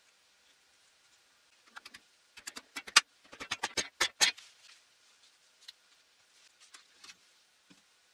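Wooden hook being tapped home into a hole in the wall, driving its tenon onto a hidden wedge. About two seconds in there is a quick run of a dozen or so sharp knocks, then a few faint ticks.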